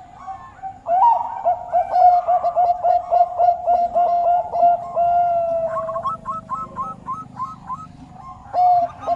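Zebra dove (Bangkok perkutut) cooing: a held note about a second in, then a rapid run of short notes that each dip in pitch, about three a second. A second, higher series of repeated coos joins about six seconds in, with faint high chirps above.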